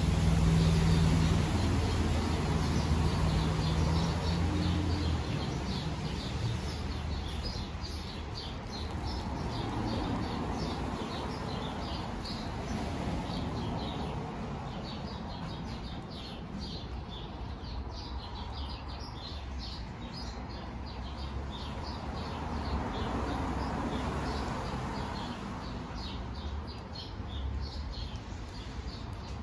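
Small birds chirping in a rapid stream of short, high calls over a steady outdoor background. A low hum sits under them for the first five seconds.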